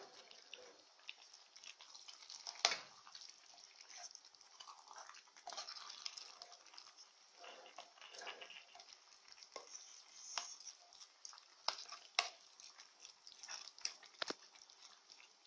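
Faint wet squelching of spaghetti in tomato sauce being stirred and turned with a wooden spatula in a frying pan, with a few sharp clicks of the spatula against the pan.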